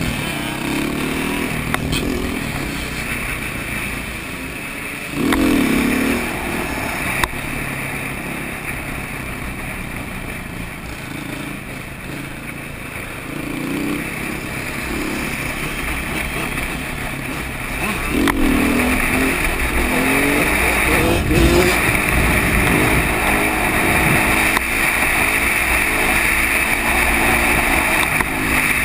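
Dirt bike engines running and revving up in several bursts, the loudest about five seconds in and again from about eighteen seconds, heard from the rider's own bike. A steady rushing noise runs underneath.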